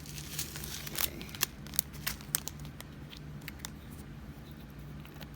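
Small plastic clicks and rustling from handling a bag of resin diamond-painting drills and a small plastic storage capsule. The sharp clicks come in the first three seconds, then fade to faint handling.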